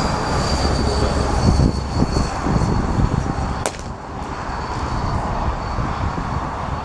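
Heavy truck passing on the road, a low rumble that eases off after about four seconds. A single sharp click about three and a half seconds in.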